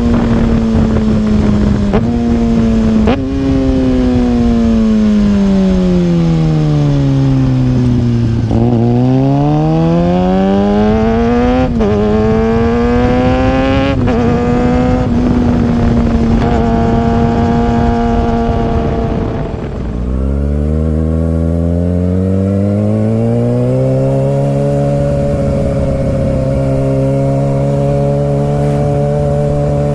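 Kawasaki ZX-6R inline-four engine running through an M4 Street Slayer exhaust with the baffle removed. The revs fall away slowly, then climb and drop sharply at two upshifts and hold steady. Near the two-thirds mark they dip and settle into a lower, steady cruise.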